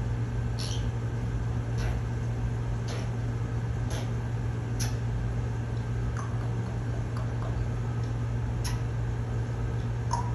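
African grey parrot making short, scattered clicks, about one a second, over a steady low room hum.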